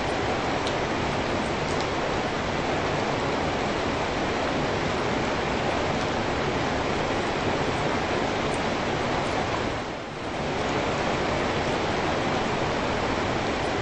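Steady rain falling, an even dense hiss with no single drops standing out; the level dips briefly about ten seconds in and then comes back.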